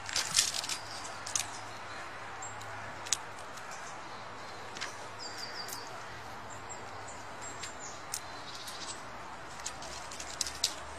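Small birds giving short, high chirps at intervals, with a few sharp clicks and taps, over steady outdoor background noise.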